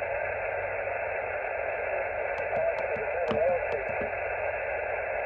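Xiegu G90 HF transceiver's speaker on 20 m sideband receive: steady, narrow band hiss with faint, warbling fragments of mistuned voices as the band is tuned. A few sharp clicks come between about two and four seconds in.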